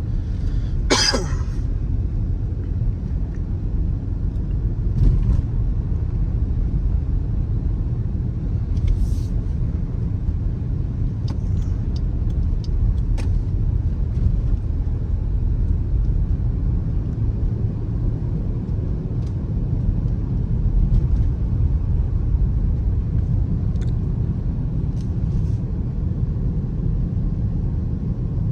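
Steady low rumble of a 2018 Dodge Durango being driven, heard from inside the cabin, with a few short clicks and knocks, the sharpest about a second in.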